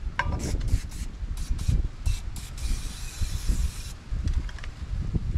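Cooking oil sprayed from a bottle over a frying pan: a run of light clicks and knocks as the bottle is handled, then one spray hiss lasting about a second and a half, starting about two and a half seconds in. Low wind rumble on the microphone underneath.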